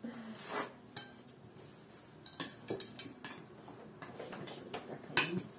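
Forks and knives clinking against plates and dishes at a table, in scattered sharp clicks; the loudest comes near the end.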